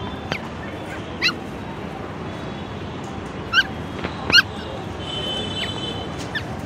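Stray puppies giving about half a dozen short, high yelps and whimpers, the loudest about four seconds in, over steady background noise.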